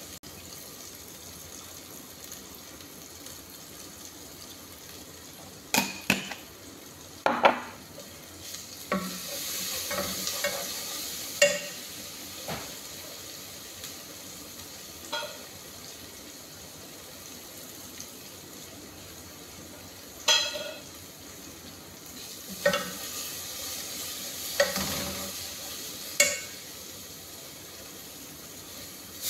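Food sizzling steadily in a steel pot on a gas burner, with scattered sharp clinks and knocks of jars and utensils being handled beside it.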